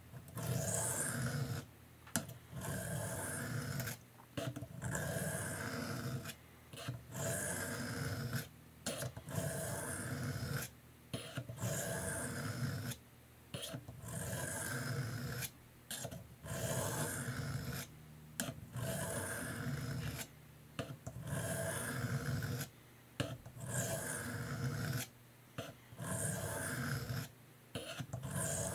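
Knife blade being stroked along a wet 300-grit diamond sharpening plate: a steady run of scraping strokes, each about a second long with short pauses between. The blade is sharpened with light pressure to raise a burr along the edge.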